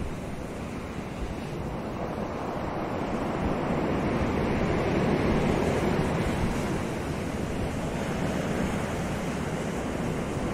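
Ocean surf breaking and washing over a rocky shore, a steady rush of waves that swells a little about halfway through, with wind noise on the microphone.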